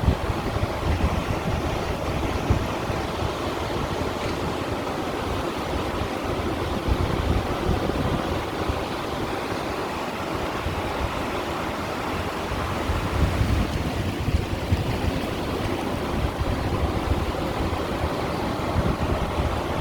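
Small sea waves washing against and over shore stones: a steady watery wash that swells louder every several seconds.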